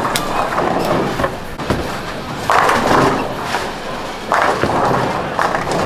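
Tenpin bowling alley din: sharp knocks and clatter of balls and pins, with two louder bursts of noise about two and a half and four and a half seconds in.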